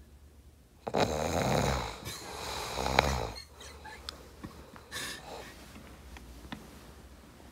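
A sleeping teenage boy snoring: two long snores, each about a second, one right after the other.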